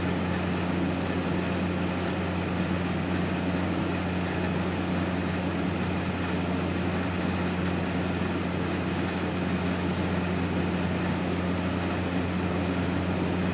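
A steady low mechanical hum under a constant hiss, unchanging throughout, like a motor running nearby.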